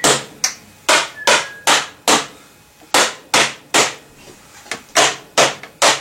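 Repeated whacks driving PVC pipe fittings together to seat them, about two blows a second. They come in three runs of three or four strikes, with short pauses between.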